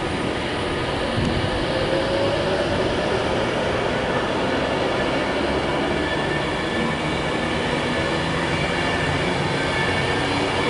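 Class 390 Pendolino electric train passing: steady, loud wheel-on-rail noise with a thin squeal over it.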